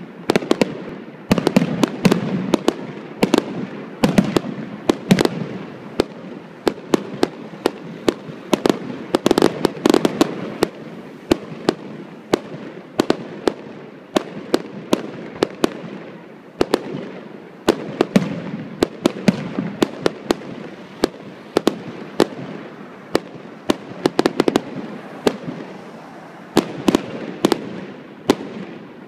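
Aerial fireworks display: shells bursting in a rapid, irregular string of sharp bangs, several a second. The bangs come in waves that swell and ease.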